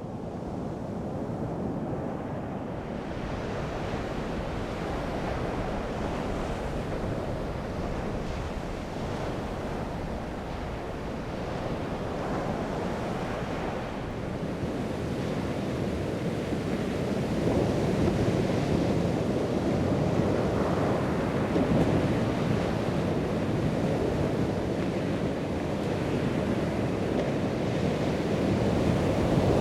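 Ocean surf: a continuous rush of waves washing in, swelling louder a little over halfway through, with wind.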